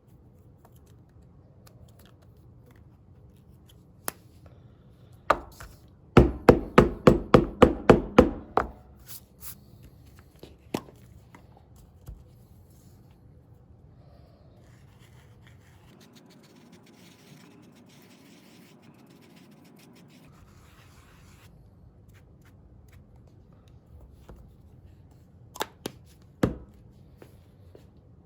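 A rapid run of about nine sharp knocks, roughly four a second, with a few scattered single clicks before and after, and a faint steady hum for several seconds in the middle.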